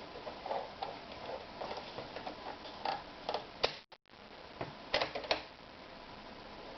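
Irregular light clicks and taps from handling and working a Toyota EX 390 sewing machine, with a few louder clicks about two-thirds of the way through and a brief cut-out of all sound about four seconds in.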